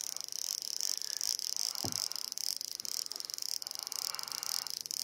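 Spinning fishing reel being cranked steadily, a fast, fine clicking hum as the line is wound in against a hooked fish.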